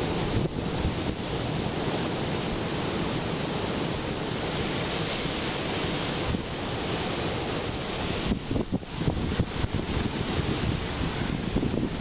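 Pacific Ocean surf breaking and washing through rocks as a steady rush of water and foam, with wind buffeting the microphone, more unevenly in the last few seconds.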